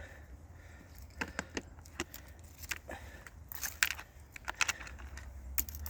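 Scattered light metallic clicks and rattles from a DeWalt electric chainsaw being handled while its chain is off, over a steady low rumble.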